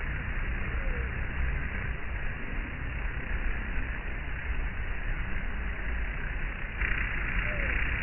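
Dense, steady buzzing of a honey bee swarm, thousands of bees massed on a hive and flying around it. It becomes louder about seven seconds in.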